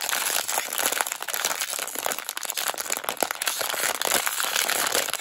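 A thick, shiny foil-and-plastic blind-box bag being crinkled and crumpled between both hands: a continuous run of dense crackling.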